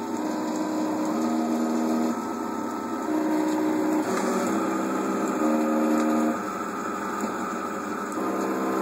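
Stepper motors of a custom clay 3D printer whining at steady pitches that jump to a new pitch every second or so as the print head changes direction and speed, over a steady mechanical hum.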